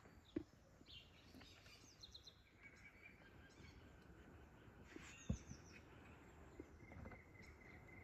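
Faint bird chirps over a near-quiet background, with two short soft knocks: one just after the start and one about five seconds in.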